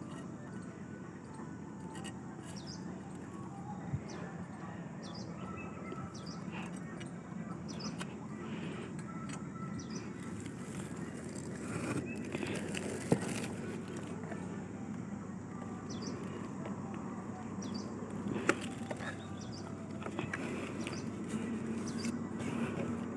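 Rustling and handling of stiff palmyra palm fronds up in the palm's crown, over a steady outdoor noise, with a few sharp knocks; the loudest comes about halfway through. Short bird chirps come and go.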